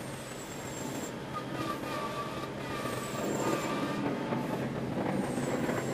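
Taxiing jet airliner: steady engine rumble with high whining tones at low taxi power, getting a little louder about halfway through.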